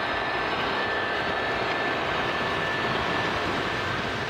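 O scale model trains running on the layout: a steady whir of motors and wheels rolling on metal track, with a thin high whine over it.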